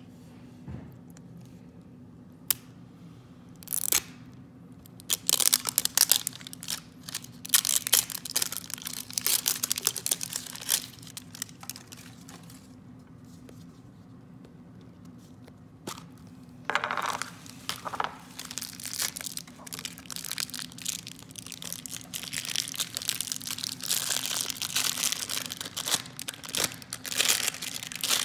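Crinkly patterned toy wrappers being torn open and unwrapped by hand, crackling and crinkling in two long stretches with a quieter pause in between.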